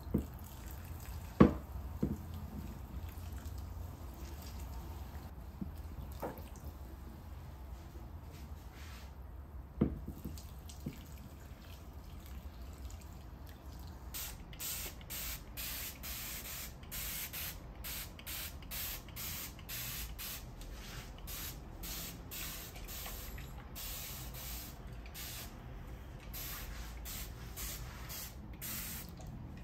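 Water poured from a glass measuring cup into a potted plant standing in a stainless steel sink, with a few sharp knocks in the first ten seconds. From about halfway on, a long run of short, high hissing bursts: a hand spray bottle misting the monstera's leaves.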